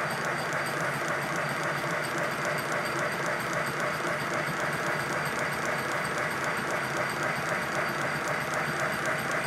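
5-inch gauge live-steam model of the 'Lion' locomotive running fast on the bench: rapid, even exhaust beats over a steady hiss.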